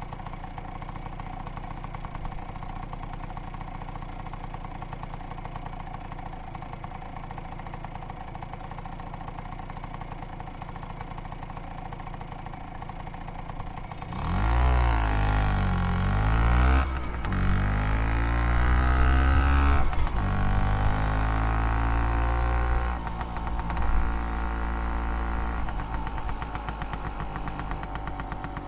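Vespa PX 200 scooter's single-cylinder two-stroke engine idling steadily through its old exhaust, then revved up and down several times from about halfway, before dropping back to idle with one short blip near the end.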